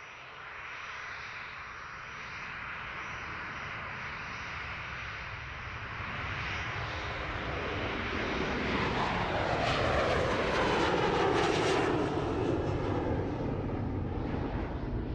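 Jet airliner engines at takeoff power, heard from inside the cabin, a steady roar that grows louder as the plane rolls and lifts off. A falling whine runs through it about nine to twelve seconds in.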